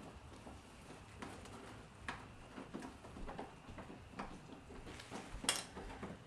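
Scattered light clicks and taps of hands and tools working on a car's plastic front bumper and its fasteners, with one sharper click about five and a half seconds in.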